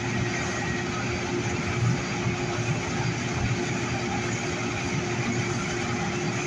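Steady hum of a Metro A Line light-rail car standing at a station platform, heard from inside the car: its onboard equipment runs with one steady held tone over a low rumble.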